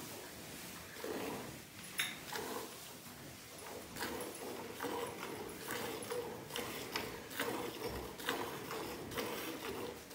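Cow being milked by hand: jets of milk squirting into a steel pail partly full of milk, in a steady rhythm of about two squirts a second.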